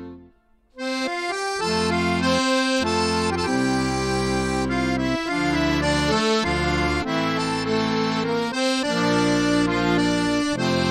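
Instrumental background music of held chords and a melody. It drops out for a moment near the start, then resumes and plays on steadily.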